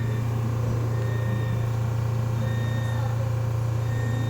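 A steady low machine hum at an even level, with faint short high beeps recurring about once a second.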